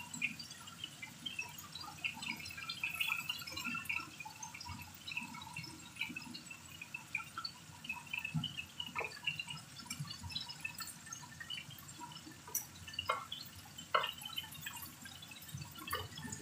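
Chicken pieces frying in oil in a frying pan, a dense crackle and sputter of spitting fat. A few sharp clicks of tongs knocking against the pan come in the second half as the pieces are turned.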